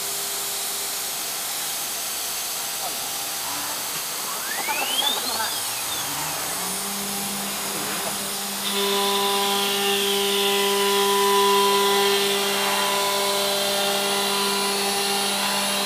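HSD automatic-tool-change router spindle on a CNC router spinning up, its whine rising in pitch over about two seconds and then holding steady. About nine seconds in, the router bit starts carving the board and the sound gets louder, with a broad hiss of cutting over the steady whine.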